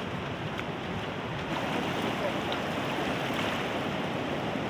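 Fast-flowing river water rushing steadily, growing a little louder about a second and a half in.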